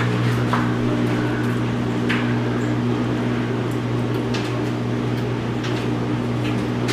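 Coin-operated clothes dryer running: a steady motor and blower hum over an even rush of air, with a few faint clicks.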